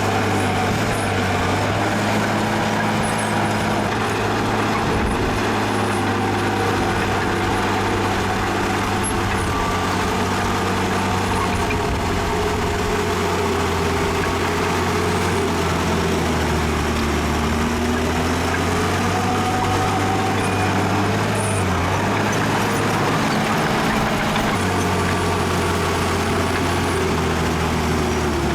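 Heavy diesel engine of earthmoving machinery running continuously, its low note shifting up and down a few times as the load changes.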